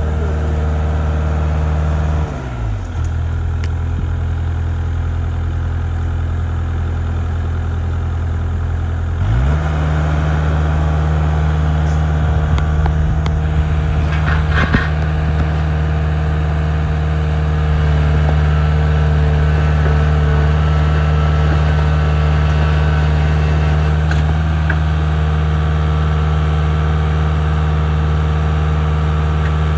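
A heavy machine's engine running steadily. About two seconds in its speed drops to a lower pitch, and about nine seconds in it climbs back up and holds a higher, steady speed.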